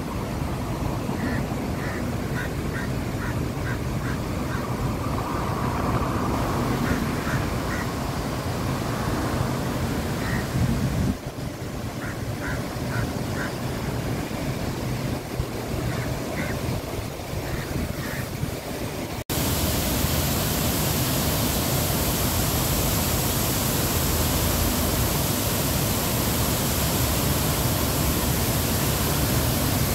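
Outdoor street ambience: a steady rumble and hiss of traffic, with runs of short, high chirps repeating a few times a second. About two-thirds of the way in, an abrupt cut switches to a louder, even rushing noise.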